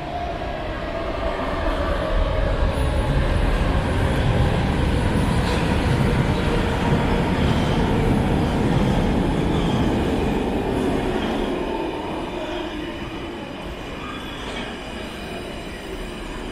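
Brussels Metro train pulling into an underground station: a heavy rumble of steel wheels on rail that builds over the first couple of seconds and eases off as it slows, with an electric whine falling steadily in pitch as it brakes and a few faint high wheel squeals.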